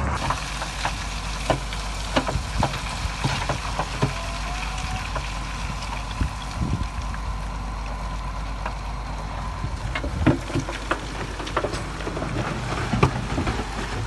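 Diesel engine of heavy earthmoving equipment running at a steady low note, with scattered sharp knocks and clatters throughout.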